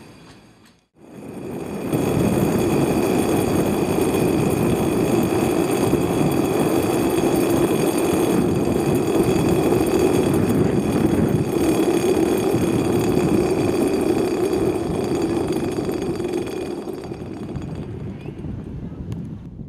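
Great Orme Tramway's steel haulage cable running over the track pulleys between the rails: a steady, dense mechanical rumble and rattle that rises in about two seconds in and fades away near the end.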